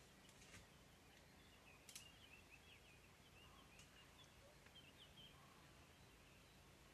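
Faint rapid series of short, high-pitched chirps from a small animal calling, running for several seconds, with a few soft clicks, the most distinct about two seconds in.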